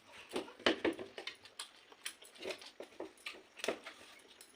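Eating sounds from a meal of pakhala (rice soaked in water): an irregular string of short wet clicks and smacks.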